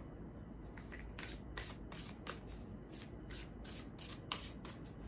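A deck of tarot cards being shuffled by hand: a string of short, irregular card snaps, starting about a second in.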